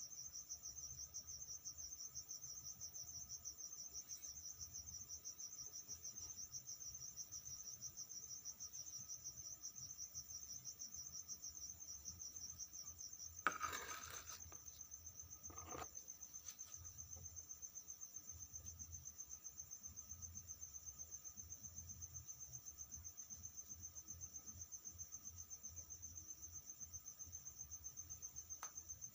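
Steady, high-pitched insect trill, rapidly pulsing and unbroken. About halfway through there is a brief rustling knock, the loudest sound, and a smaller one about two seconds later.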